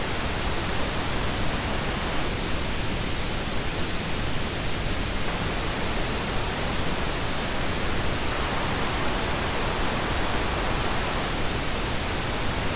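Steady pink noise test signal with a narrow equaliser band at 1 kilohertz cut or boosted by 3 dB for comparison. For a few seconds past the middle the midrange around 1 kHz is lifted and sounds pushed forward.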